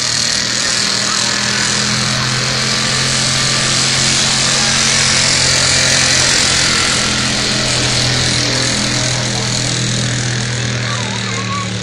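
1985 Ford F250 pickup's engine held at high revs under full load as it drags a weight-transfer pulling sled, a loud, steady drone that keeps the same pitch throughout.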